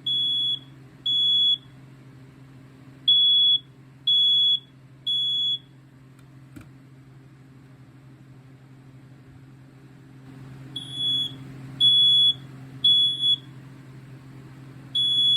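BRK 4120-series ionization smoke alarm sounding its temporal code-3 alarm: groups of three shrill beeps, about one a second, with a pause after each group. There is a longer gap in the middle.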